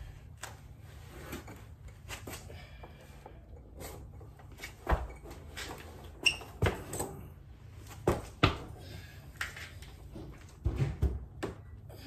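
Irregular knocks and clunks of things being handled and set down, sharpest between about five and nine seconds in, with a quick cluster near the end, over a low steady hum.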